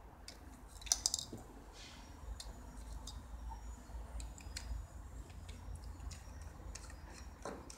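Sparse small clicks and taps of batteries and plastic parts as AA batteries go into a handheld milk frother's battery tube and its plastic battery cap is fitted, with the sharpest click about a second in.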